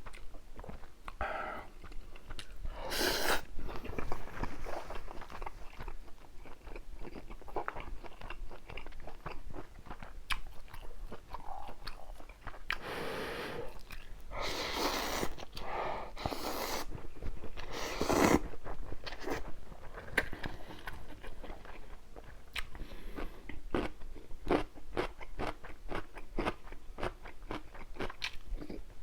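A person eating close to the microphone: steady chewing with crunchy bites, and several louder noisy bites or slurps about halfway through.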